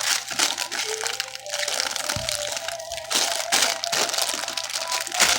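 Packaging crinkling and crackling in quick, irregular bursts as parts are unpacked from their box, with background music.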